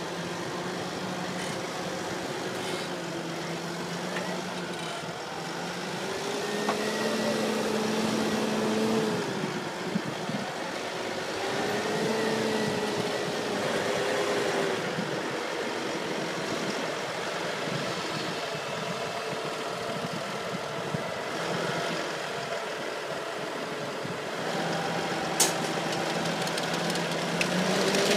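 Deutz-Fahr 7250 TTV tractor's six-cylinder diesel engine running under load as it pulls a plough through the soil, its pitch drifting gently up and down. A single sharp click near the end.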